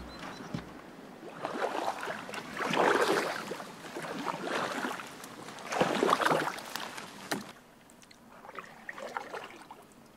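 Kayak paddle strokes in calm water: the blades dip and pull, splashing and dripping, a stroke about every second and a half. The strokes grow fainter near the end.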